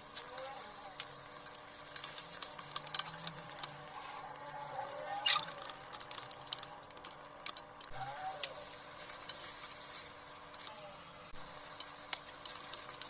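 Mutton frying in a karahi, with a low sizzle under scattered sharp clicks and scrapes of a utensil stirring against the pan.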